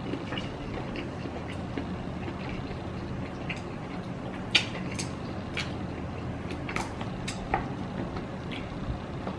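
Eating sounds: chewing, with a few sharp clicks of chopsticks picking at food in a plastic takeaway tray, over a steady low hum.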